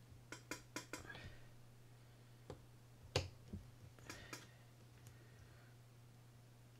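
Sharp small clicks of metal parts of a Shimano Citica 200D reel's drive shaft assembly being handled while a C-clip is snapped on: four quick clicks in the first second, a louder single click about three seconds in, and a few more around four seconds.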